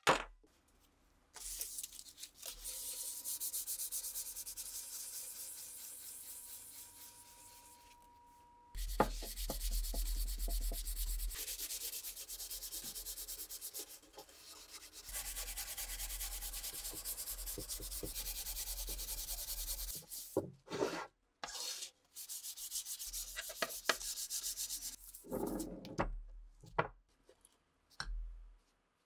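Sandpaper rubbed by hand along a stripped wooden rifle stock in long, steady rasping passes, with pauses and a few light knocks between them. A sharp knock right at the start as the stock is set down on the wooden table.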